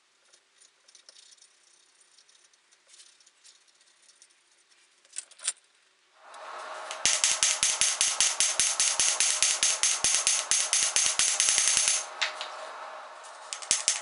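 Hand hammer striking red-hot steel on an anvil: rapid, ringing metallic blows at several a second for about five seconds, pausing and starting again near the end, over a steady rushing noise that starts about six seconds in. Before the hammering, only faint scraping strokes and two sharp clicks.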